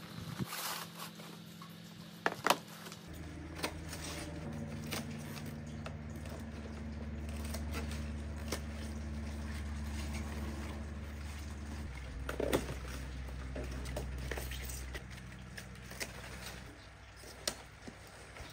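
Handling noises as white PVC hydroponic channels and pak choy plants are moved about on a wooden bench: scattered knocks, scrapes and leaf rustling, with one sharper knock past the middle. Under them a low steady mechanical hum starts a few seconds in, shifts in pitch a few times and fades near the end.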